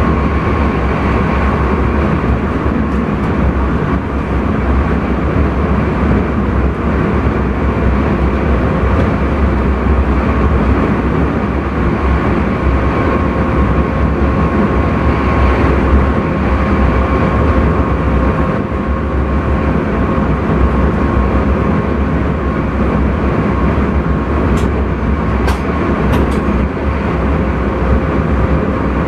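Intercity train running at speed, heard from inside the driver's cab: a steady low rumble with a thin steady whine over it. A few sharp ticks come near the end.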